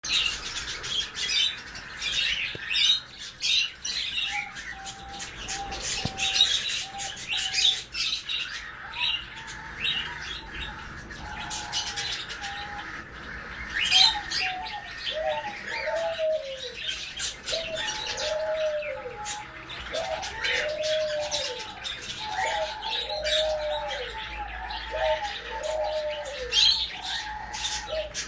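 A pair of sun conures during mating: quick, sharp high chirps throughout, and from about halfway a run of arching low calls about every second and a half.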